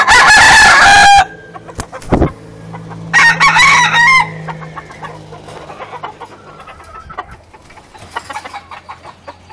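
Rooster crowing twice at close range, each crow about a second long: the first very loud right at the start, the second about three seconds later. A short knock comes between them.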